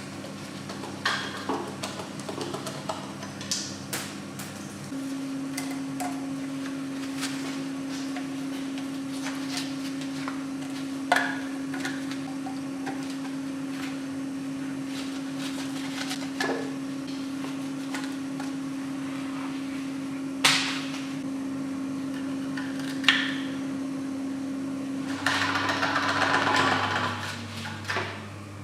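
Scattered sharp clicks and knocks of tools on metal engine parts over a steady hum, with a rougher, louder burst lasting about two seconds near the end.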